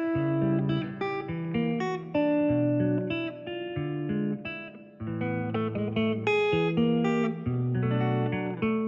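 Background music: a plucked guitar playing a melody over a bass line, with notes changing about every half second.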